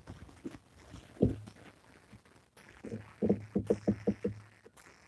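A man's soft, low chuckling: one short voiced sound about a second in, then a quick run of soft laughing pulses in the middle.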